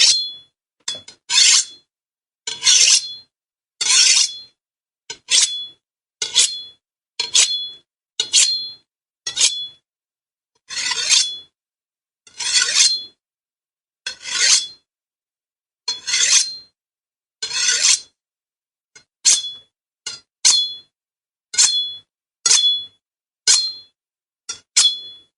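Steel blades scraping along metal, a string of about twenty short scrapes roughly a second apart, each with a high metallic ring like a sword or knife drawn against steel.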